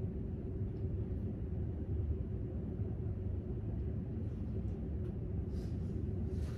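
Steady low rumble of library room tone, with a few faint light clicks near the end.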